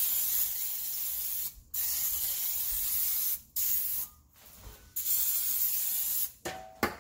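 Pam aerosol cooking spray hissing out of the can in three long sprays of about one and a half seconds each, then a short final puff, greasing an air fryer basket.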